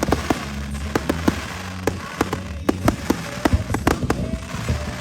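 Fireworks display: many sharp bangs and crackles in quick succession, over show music whose low sustained bass notes stop about two seconds in.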